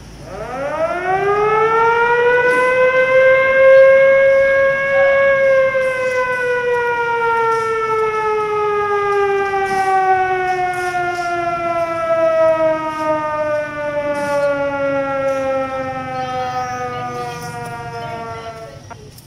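A siren sounding one long wail. It rises quickly to its highest pitch in about two seconds, then falls slowly and steadily for more than ten seconds before cutting off suddenly near the end.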